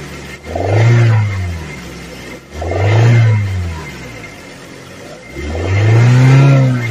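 Kia Sportage 3's G4KD 2.0-litre four-cylinder petrol engine revved three times, each rev rising and falling in pitch, the third one longest, with idling between. It is revved to bring out a knock heard above 2000 rpm, which the owner takes for piston slap.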